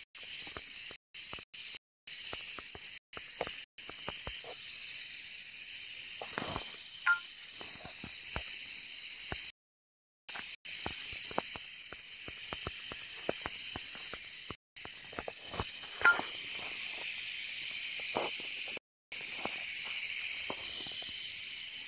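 Steady, high-pitched chorus of night insects, dense and unbroken, with scattered faint clicks and a couple of louder knocks. The sound cuts out completely for a moment several times.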